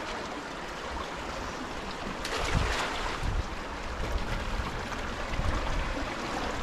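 River water rushing steadily, with wind rumbling on the microphone and a louder swell of the rush about two and a half seconds in.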